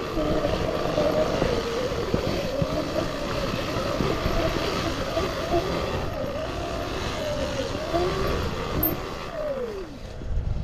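Motorcycle engine running under way, its pitch wavering up and down, over wind and rumble. Near the end the pitch falls steeply as it slows.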